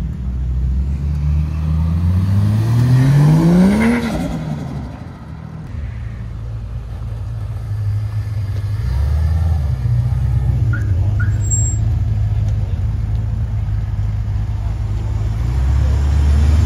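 A car engine revving up, its pitch climbing steadily for about three seconds before falling away, then running on with a steady low rumble.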